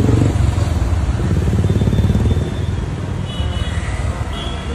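City road traffic: a loud, steady low engine rumble from motor vehicles close by, with faint high tones in the second half.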